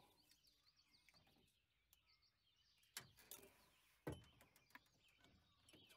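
Near silence, with faint birds chirping and two soft clicks about three and four seconds in, from ignition wires being handled at the coil.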